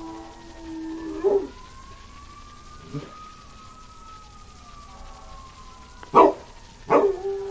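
A dog howls in a long held note along with a passing fire truck's siren, which wails slowly up and down. The dog breaks in with short loud barks about a second in and twice near the end.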